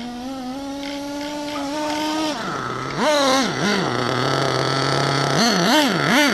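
Small nitro engine of a 1:8-scale RC monster truck: a steady note that climbs slowly, drops about two seconds in, then revs up and down several times as the truck drives through snow.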